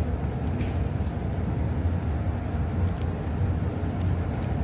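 Steady low rumble of outdoor background noise, with a few faint, short sharp ticks.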